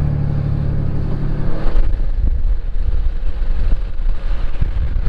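Pickup truck towing a heavily loaded equipment trailer at low speed: its engine runs steadily under the rumble of the road. About two seconds in the sound turns rougher and noisier.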